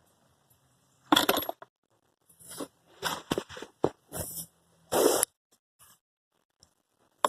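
Irregular scraping, knocking and clinking of hard parts being handled as a replacement blower motor is pushed up into its housing, in several short bursts with the loudest knocks about three and five seconds in.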